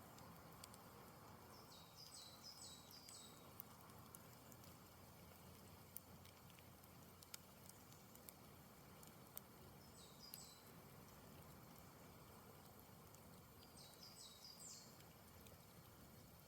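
Campfire burning quietly, with scattered sharp crackles and pops from the wood. A small bird sings three short phrases of quick high notes: about 2 s in, around 10 s, and near the end.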